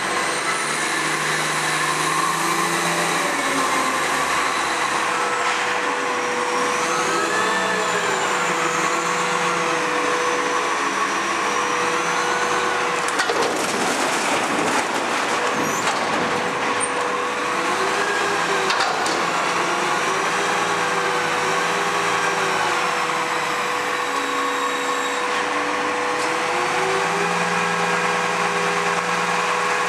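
Iveco front-lift garbage truck working its lifting arms: the engine revs up and down several times to drive the hydraulics, over a steady whine. About halfway through comes a burst of crashing as the raised bin is tipped and the rubbish falls into the hopper.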